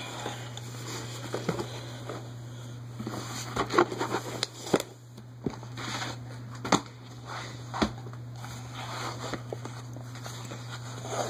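Close handling noise: scattered rustles, clicks and light knocks as a drawn-on white piece of cloth or paper is moved about, over a steady low hum.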